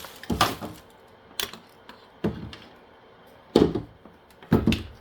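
A handful of separate knocks and clacks, roughly one a second, from objects being handled and set down; the multi-tool is not running.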